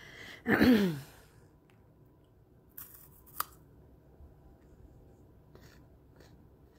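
A brief falling-pitch vocal sound from the woman, then two short crisp crunches about three seconds in as she bites into a chocolate-coated snack stick, followed by faint chewing.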